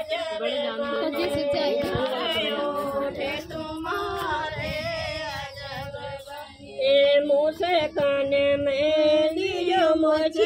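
A group of women singing a traditional folk wedding song unaccompanied, holding long notes. The singing grows louder about seven seconds in.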